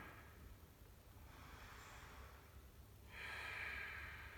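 Slow, faint human breathing: a soft inhale, then a longer exhale starting about three seconds in.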